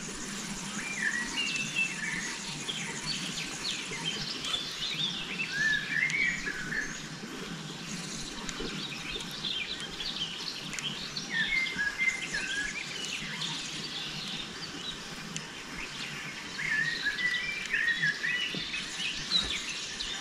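Songbirds singing: quick chirping, warbling phrases that come and go every few seconds, over a faint steady low background hiss.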